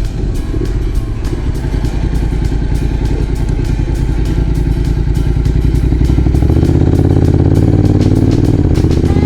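Motorcycle engine running on the road, a steady low drone that grows louder about two-thirds of the way through.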